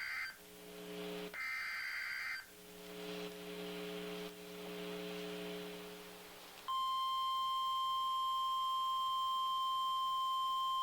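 NOAA Weather Radio alert header for a severe thunderstorm warning: two short bursts of SAME digital data tones, then a few seconds of buzzing hum and radio hiss. About seven seconds in, the steady 1050 Hz weather radio alarm tone starts and holds.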